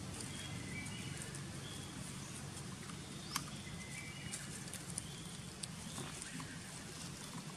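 Outdoor park ambience: a steady low hum with scattered short, high chirps and a sharp click about three and a half seconds in.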